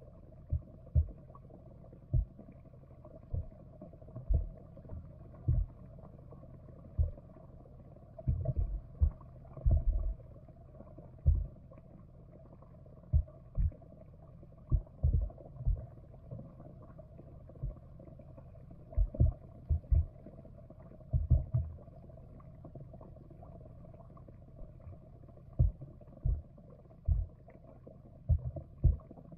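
Muffled underwater sound picked up by a camera submerged in a pond: irregular low thuds, sometimes in quick clusters, over a steady faint hum.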